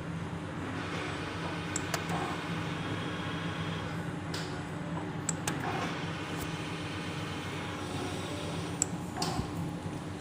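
Push-button switch on a CNC machine clicking several times over a steady machine hum.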